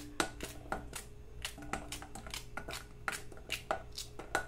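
Okra pods sliced by hand with a small knife, the rounds dropping into a stainless steel bowl: a run of crisp, irregular clicks, about three or four a second.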